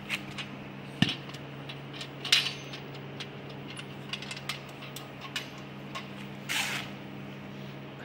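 Metal vacuum-cleaner bucket full of oily lathe swarf being handled and tilted: repeated light clinks and knocks of metal chips and the bucket, with a couple of short rushes of sliding chips, the longest about six and a half seconds in, over a steady low hum.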